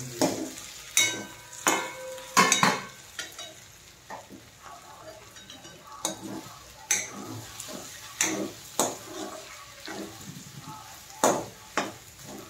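Metal spoon stirring cooked pumpkin bhaji in a metal kadai, with a dozen or so irregular clinks and scrapes of the spoon against the pan.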